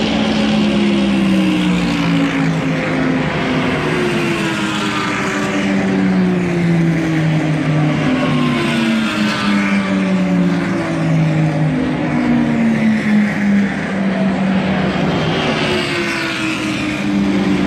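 Race car engines passing one after another down the straight, several pass-bys with each engine's pitch falling as the car goes by, over a steady bed of engine and tyre noise.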